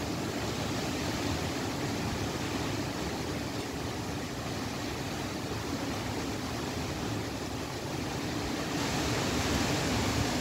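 Dust-storm wind blowing steadily through the trees, a continuous rushing noise that grows a little louder about nine seconds in.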